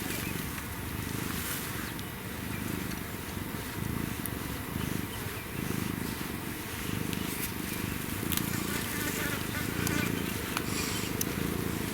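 African wildcat kitten purring steadily, a low, rapid vibrating rumble.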